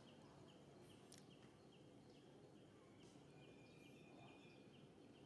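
Near silence: faint outdoor ambience, with a faint high chirp repeating about three times a second and a single soft click about a second in.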